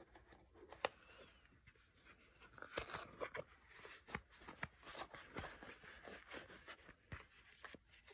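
Faint rustling, crinkling and light taps of hands handling a plush microfiber cloth and plastic packaging in a cardboard box.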